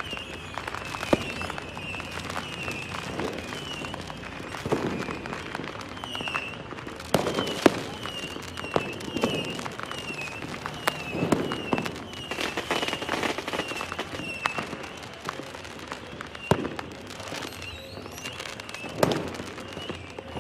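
Fireworks going off: irregular sharp bangs, some followed by a rumbling boom, with crackling between them. A short high chirp repeats about twice a second throughout.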